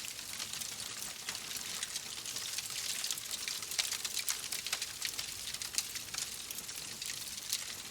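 Fireplace fire crackling: a steady hiss with many small, sharp pops.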